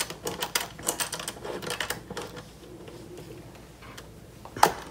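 Hand screwdriver driving a screw into the threaded mounting hole on the back of a monitor, giving a quick run of small metallic clicks in the first two seconds that then grows quieter. One sharper knock comes just before the end.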